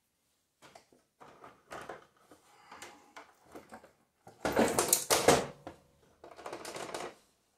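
Lawn-and-garden battery being lowered and worked into its plastic tray: a run of irregular knocks, scrapes and rustles, loudest about halfway through and again shortly before the end.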